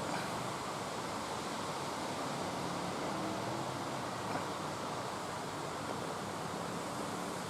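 Steady, even background hiss of outdoor ambience, with a faint low hum underneath and no distinct events.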